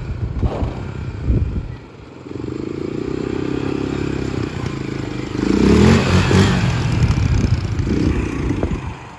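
Engine of a 1994 sport ATV running as it is ridden: uneven at first, then a steady note for a few seconds, then louder revving with a rougher sound from about halfway through, dropping away near the end.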